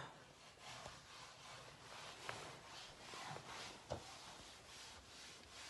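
Faint, repeated rubbing strokes, with two light knocks about two and four seconds in.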